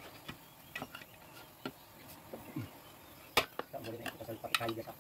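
Scattered sharp metallic clinks and taps as truck brake lining pieces and hand tools are handled and set down. The sharpest clink comes a little past halfway.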